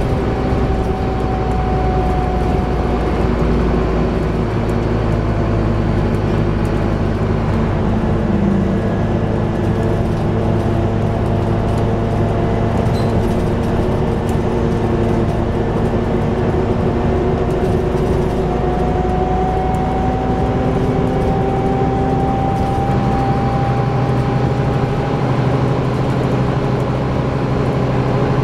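Interior sound of a Scania-engined Alexander Enviro400 double-decker bus under way: the engine drones steadily with road noise. A high whine dips a few seconds in and climbs again in the second half.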